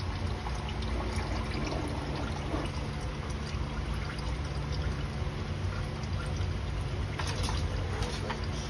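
Used engine oil trickling in a thin stream from a Chevrolet Tahoe's oil-pan drain hole into a drain pan of collected oil, late in the draining. The sound is steady over a low hum, with a few light clicks near the end.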